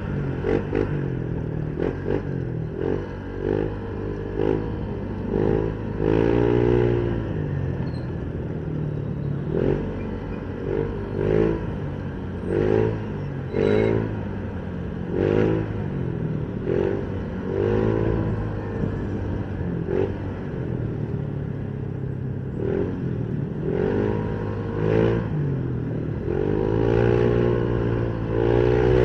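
Motorcycle engine idling with repeated short revs, the pitch rising and falling again every second or two, with light clatter.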